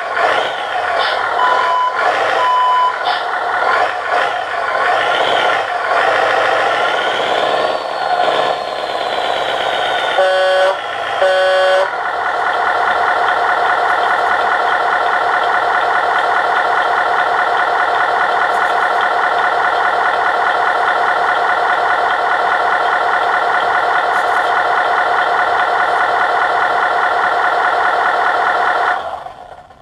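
RC engine sound module playing a simulated Scania 143 V8 truck engine through a small speaker. It revs up and down, gives two short high beeps early on and two short horn blasts about ten and eleven seconds in, then runs at a steady speed until it dies away near the end.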